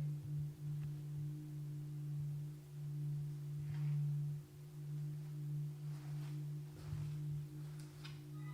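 A steady low hum, with a few faint scattered knocks that the investigators take for footsteps in the hallway.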